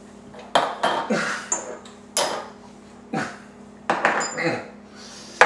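Small glass shot glasses knocked down onto a countertop about six times, a sharp knock every second or so, as shot after shot of rum is downed.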